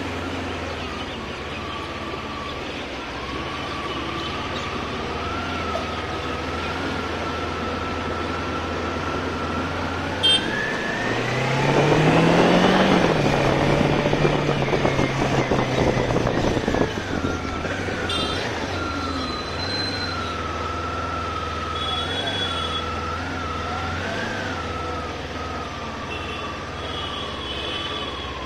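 Kawasaki Ninja 400 parallel-twin engine running at low speed in traffic. About ten seconds in, it revs up in pitch and holds a higher note for several seconds before easing off. A thin, wavering high tone sits in the background.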